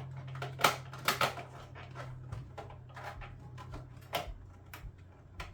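Plastic clicks and knocks of vacuum cleaner parts being handled and fitted back together as a HEPA filter is put back in, with the sharpest knocks about half a second and a second in and another about four seconds in. A low steady hum underneath stops about two seconds in.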